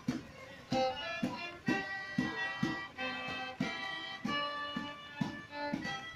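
Live acoustic band music: a fiddle playing held notes over a steady beat of about two strokes a second.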